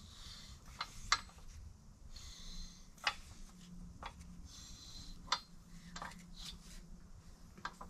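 BMW N55 crankshaft being turned slowly by hand in the block's main bearings: scattered light metallic clicks and soft rubbing, over a low steady hum. The crankshaft is being rotated for a runout check on main journal number 4.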